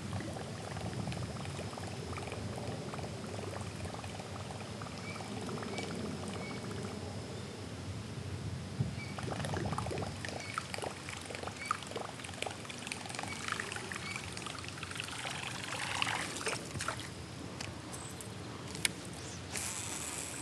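Water trickling and splashing around a kayak on a slow river, with scattered small clicks and knocks that are busiest in the middle stretch.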